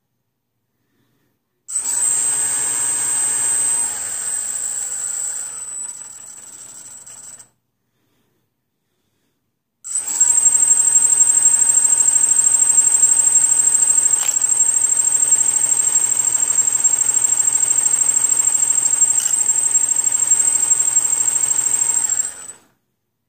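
Brushless motor run by a damaged Emax SimonK 12A speed controller, giving a high-pitched electronic whine with a fast pulsing rattle. It sounds in two runs that each cut off sharply: the first lasts about six seconds and drops in level in steps, the second holds steady for about twelve seconds.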